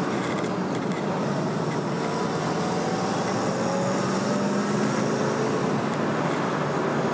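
A 1966 Corvette Stingray's 300-horsepower 327 V8 running as the car drives along, its pitch rising slowly as it gathers speed, over steady road and wind noise.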